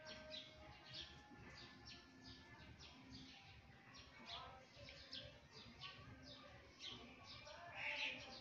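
Faint bird chirping: short, quick chirps repeated evenly about two or three times a second.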